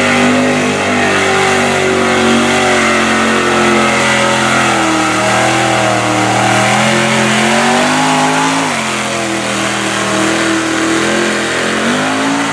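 Mud truck on tractor tires running hard through a deep mud pit, its engine held at high revs with a wavering pitch that drops about nine seconds in and climbs again near the end.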